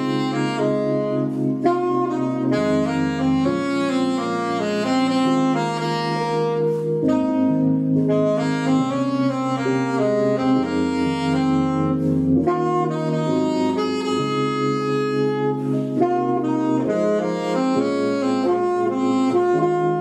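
Saxophone playing a smooth-jazz ballad melody over a backing track of sustained keyboard chords and bass, with a second saxophone coming in near the end.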